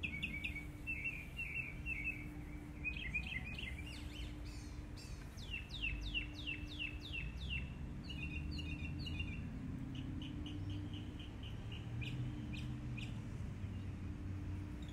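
Songbirds chirping: runs of quick high chirps, a series of downward-swooping notes about five seconds in, then fast chirp runs again, over a low steady background hum.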